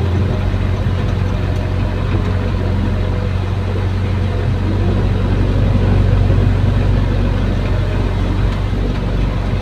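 Caterpillar excavator's diesel engine running steadily while the arm digs and swings, heard from inside the cab as an even, deep drone.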